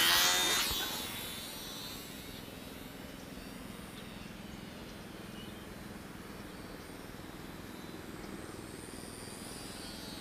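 Volantex Mini Trainstar micro RC airplane's small electric motor and propeller whining: loud at first, its pitch falling steeply within the first second as it pulls away, then a faint steady drone that grows slightly louder near the end.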